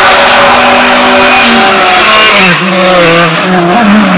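Hyundai i20 R5 rally car's 1.6-litre turbocharged four-cylinder engine running hard under load as the car drives past. The pitch dips briefly about two and a half seconds in, then holds with small rises and falls.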